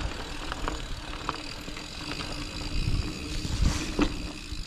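Mountain bike rolling down a dirt trail: a steady rumble of tyres over the ground and wind on the microphone, with a few sharp knocks and rattles from the bike over bumps.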